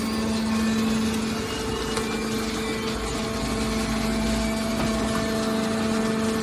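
Hydraulic can baler's motor and pump running with a steady hum.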